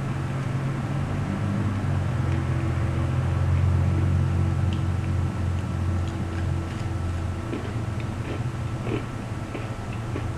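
A person chewing a crunchy, cracker-like seed and chickpea snack bar, with short crisp crunches from about halfway in, over a steady low background hum.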